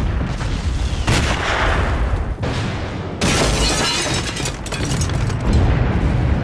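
A run of explosions with a deep, continuous rumble, fresh blasts striking about a second in and again about three seconds in.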